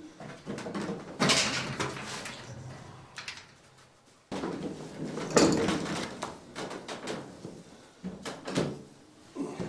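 Felt rug pad being slid and smoothed across a floor by hand: scraping and rustling in irregular bursts.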